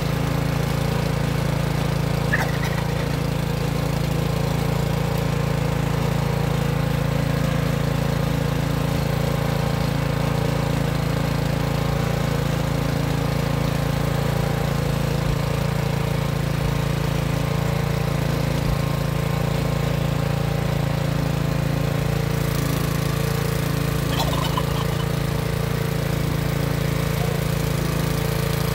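Rototiller's small gasoline engine running at a steady idle, with no change in speed.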